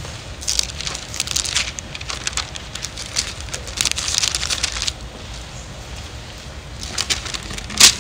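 Thin Bible pages being turned, rustling and crinkling in a few bursts, with one sharp click near the end that is the loudest sound.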